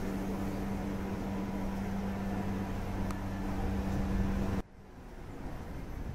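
Steady mechanical hum with a low droning tone, like a motor running at a distance. It cuts off abruptly near the end and gives way to quieter outdoor background noise.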